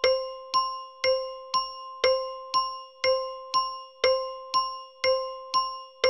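Bell tick-tock timer ticking steadily, about two strikes a second. Each tick is a bell-like ding that rings and fades before the next.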